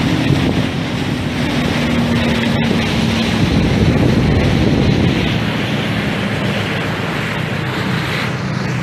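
Motorboat under way: its engine running steadily under heavy wind noise on the microphone and the rush of water past the hull.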